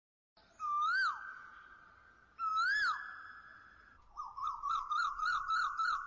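Intro sound effect of whistled bird calls: two separate calls that each rise and then drop, followed about four seconds in by a quick run of short chirps, about four a second.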